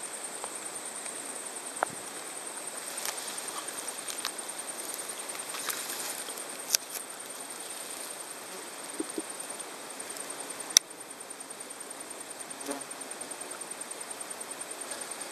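Many dung beetles flying in to fresh dung, their wings making a steady, finely pulsing buzz much like bumblebees. A few sharp clicks stand out over it.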